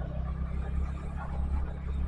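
Steady low vehicle rumble heard while riding.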